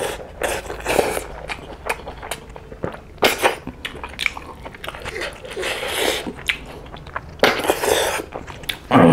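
Close-miked eating: snail meat sucked out of the shells with wet slurps, and chewing in between, with two longer slurps past the middle.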